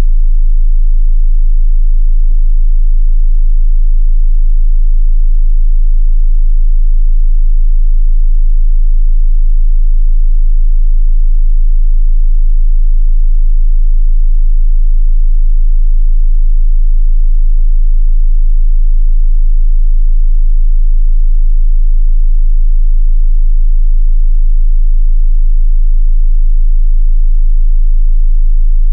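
A steady 27 Hz sine-wave bass test tone: one unchanging, very deep hum with no variation in pitch or level.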